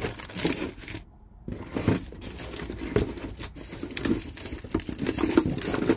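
Rustling and crinkling of packaging as items are rummaged through in a box, with a brief lull about a second in.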